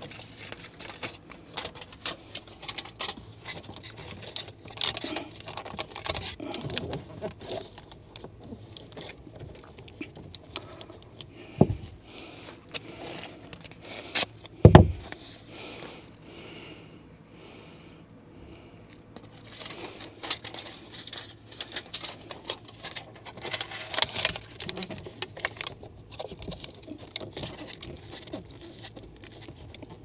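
Aluminium foil tape being torn, handled and pressed onto a foil flexible duct: irregular crinkling, rustling and scraping, with two louder knocks near the middle.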